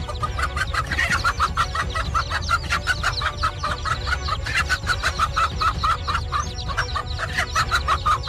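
Hen giving a rapid, unbroken string of short alarm clucks, about five a second, while she faces a snake that threatens her chicks. A low steady rumble runs underneath.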